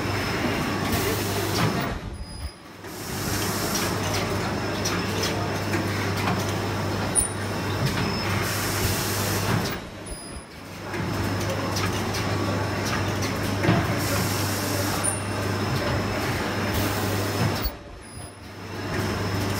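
Automated film-cutting machine running: a steady mechanical hum with the clatter of its rollers and mechanisms, dropping away briefly three times at even intervals, about every eight seconds.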